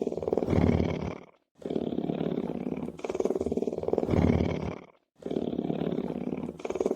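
Lion's rumbling purr: a low, pulsing rumble in phrases of about three seconds, each ending in a brief silence, the same phrase repeating about every three and a half seconds.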